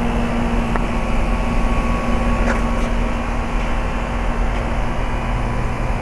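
2003 Rheem Classic 1.5-ton heat pump outdoor unit running in heat mode: a steady rush of air with a low hum underneath.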